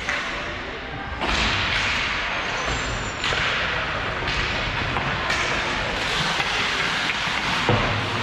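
Hockey game in play: a loud, rushing noise with sudden knocks every second or so, from sticks, puck and players on the rink.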